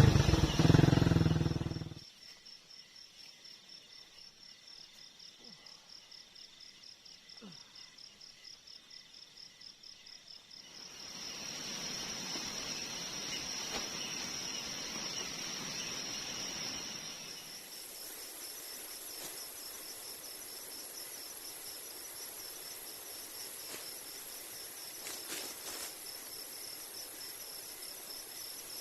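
Insects trilling steadily in a fast, pulsing, high-pitched chorus. About two-thirds of the way through, a second, even higher insect call joins, with a broader rushing noise just before it. At the start, a loud low rumble cuts off abruptly about two seconds in.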